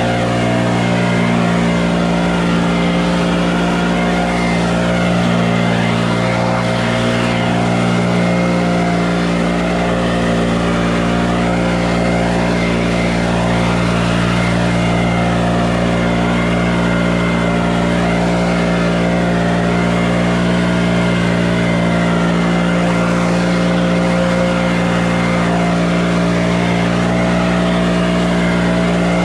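An engine running steadily at one constant speed, with a continuous even hum and no revving or stopping.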